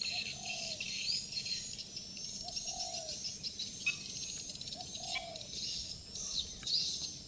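Birds chirping and calling over a steady high insect drone, with a short low call repeated about every two to three seconds.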